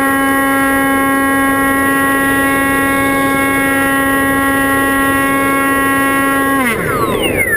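Motor and propeller of an FPV model aircraft, heard from the onboard camera, running at a steady high-pitched whine. Near the end the throttle comes off: the pitch drops quickly as the motor winds down and wind rush takes over.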